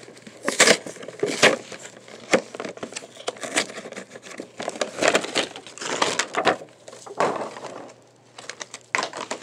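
Plastic blister packaging of a toy two-pack handled and pulled open by hand: irregular crackling, snapping clicks and rustling.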